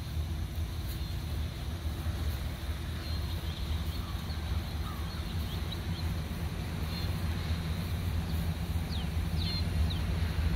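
A steady low rumble with birds chirping a few times over it, a quick run of short falling chirps near the end.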